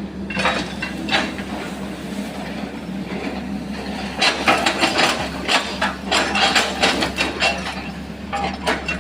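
Sany SY135F excavator's engine running steadily while the bucket chops oil palm trunks, giving clusters of woody knocks and cracks: a short group about a second in and a dense run from about four seconds in to near the end.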